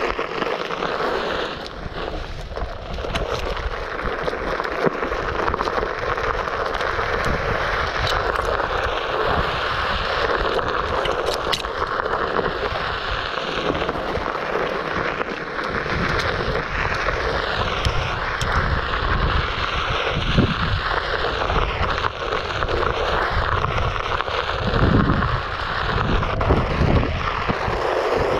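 Wind buffeting the microphone over the rolling, crunching and scraping of a Onewheel Pint's tyre on a dirt trail, with scattered small crackles and clicks.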